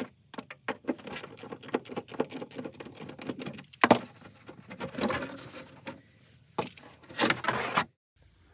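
A thin interior wall panel being worked loose and pulled out of a camper's storage compartment: a run of clicks, knocks and rattles with scraping in between, and one sharp knock about four seconds in.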